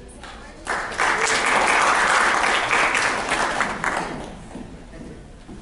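Audience applauding: a burst of clapping that swells about a second in, holds for about three seconds, then dies away.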